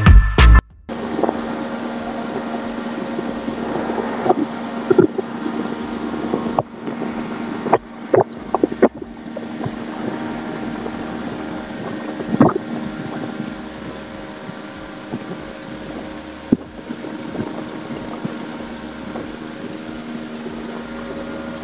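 Tour boat's motor running steadily, a constant hum with a few short knocks scattered through it.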